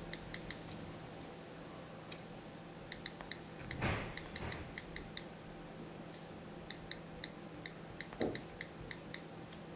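iPad on-screen keyboard clicks: faint, short key-click sounds in bursts of a few quick taps with pauses between, as text is typed. A brief soft noise about four seconds in and a shorter one about eight seconds in.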